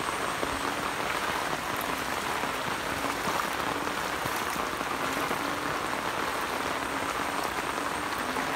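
Heavy rain falling steadily onto shallow floodwater and wet grass, a continuous even patter.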